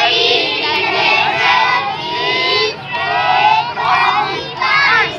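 A group of schoolchildren singing together in unison, many high voices at once, with short breaks between phrases.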